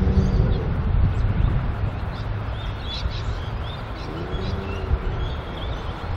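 Approaching 81 Class diesel-electric locomotives (EMD two-stroke V16 engines) hauling a grain train: a steady low engine rumble throughout. Birds chirp over it through the middle.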